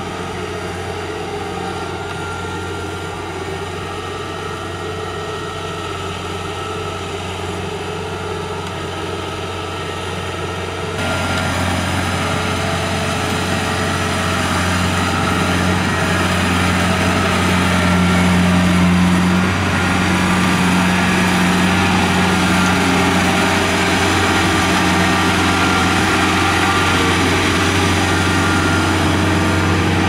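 Kubota DC70G combine harvester's diesel engine running steadily as the machine drives on its tracks across a harvested rice paddy. About eleven seconds in it suddenly gets louder and stays so.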